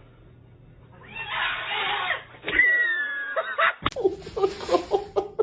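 Cat sounds: a breathy hiss, then a thin, high, slightly falling call. After a cut, a quick run of short chirping calls.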